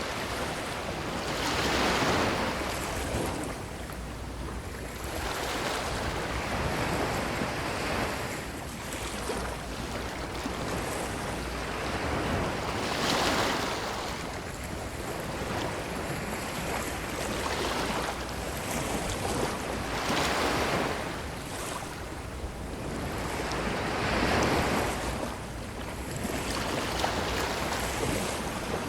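Ocean waves breaking and washing up a beach, surging and falling back every few seconds. The biggest surges come a couple of seconds in, around halfway, and near the end.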